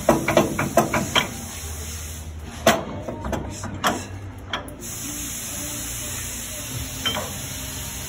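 Irregular sharp metallic clinks and knocks of bolts, nuts and tools being handled at a truck's steer-axle leaf spring, several in quick succession at first and a few more before the middle, over a steady background hiss.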